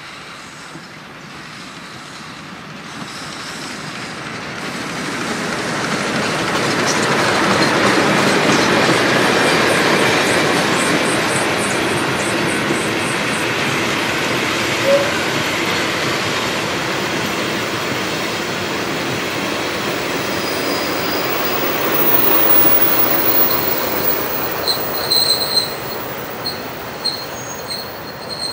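A steam-hauled passenger train of old coaches rolling past close by, swelling to its loudest about a third of the way through. Wheels click in an even rhythm over rail joints, and short high wheel squeals come near the end.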